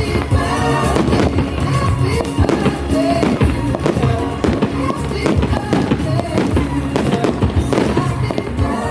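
Aerial fireworks firing: many bangs and crackles in quick succession, with music playing throughout.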